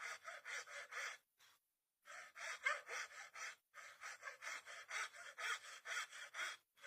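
Rhythmic scraping strokes of a hand tool worked back and forth on wood, about four strokes a second, stopping for a moment about a second in and briefly again near the middle.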